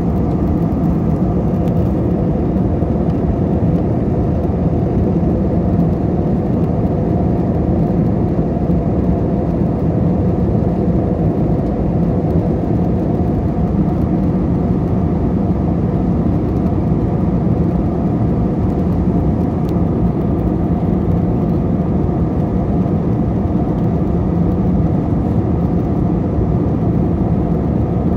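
Steady cabin noise of an airplane in flight, heard from inside the cabin: engine and airflow drone with a constant low hum and fainter higher tones over a rushing noise.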